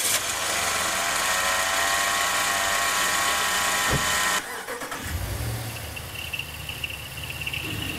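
Running car engines whining from bad bearings. First comes a stack of high tones over the engine noise. After a click about four seconds in, a quieter engine rumbles, and a steady high-pitched whine sets in near the middle. The whine is the sign of a failing bearing in one of the belt-driven accessories on the outside of the engine.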